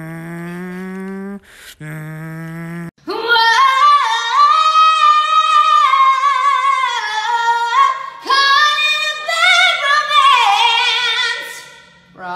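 A woman singing high, sustained, gliding notes solo, with a wide vibrato near the end. The singing starts about three seconds in, after two held low tones that each rise slightly, with a short break between them.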